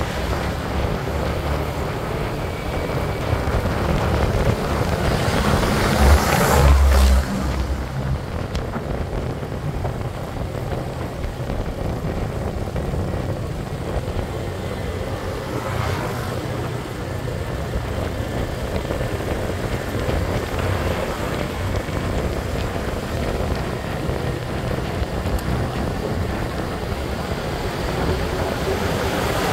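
Motor scooter riding along: steady low engine and tyre noise under wind rush on the microphone, with a louder burst about six to seven seconds in.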